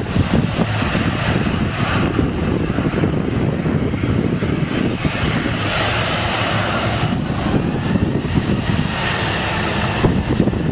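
Aircraft engines running, a loud steady rush with a faint whine over it partway through.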